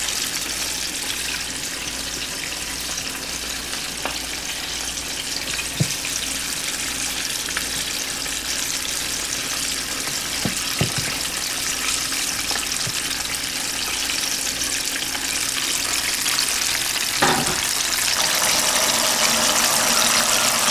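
Battered squirrel pieces deep-frying in a pot of hot oil, a steady sizzle that gets louder near the end. A few soft knocks come through it.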